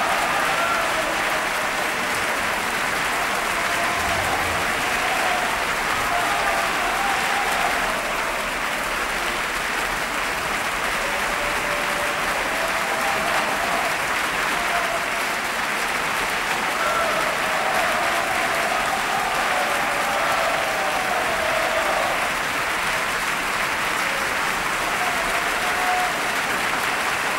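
Audience applauding steadily without a break.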